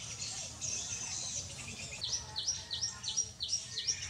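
A bird calling outdoors with a fast series of short, high chirps, about four a second, starting about halfway through, over a background of more high chirping.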